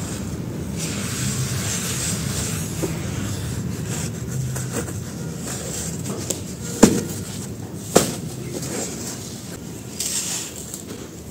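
Dry sand-cement powder handled by hand, with gritty rustling and scraping. A pressed disc of the powder cracks sharply twice, about seven and eight seconds in. Near the end there is a burst of crumbling as dry chunks are crushed in a hand.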